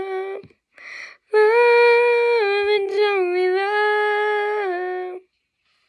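A woman's voice singing unaccompanied, without words: a held note that ends about half a second in, a quick breath, then one long held note that steps down in pitch a few times and stops about five seconds in. These are the song's final notes.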